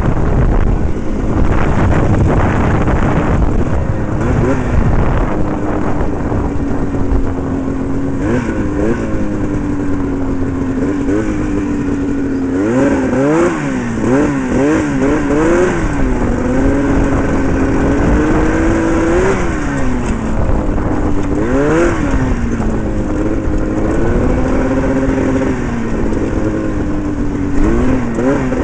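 Twin-cylinder two-stroke engine from a 1979 Arctic Cat El Tigre 5000 snowmobile, powering a go-kart and revving up and down again and again as it is driven. Wind rumbles on the microphone, heaviest in the first few seconds.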